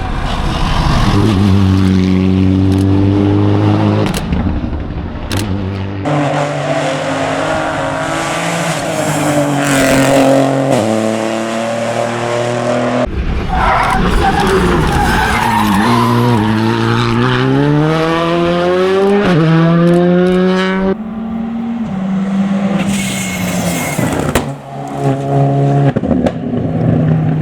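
Rally cars at full throttle, engines revving hard, rising through the gears and dropping on lift-off, with tyre squeal. The sound switches abruptly between passes several times.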